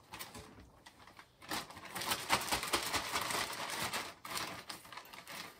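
A clear plastic bag shaken with a pork chop and flour inside: rapid rustling and patting of plastic. It starts faint, gets loud about a second and a half in, and tails off after about four seconds.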